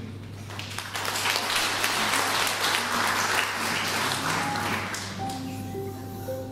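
Audience applauding, dying away after a few seconds as the band's first held notes come in near the end.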